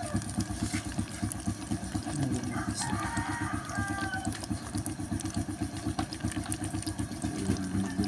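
A rooster crowing about three seconds in, over a steady low, fast-pulsing rumble.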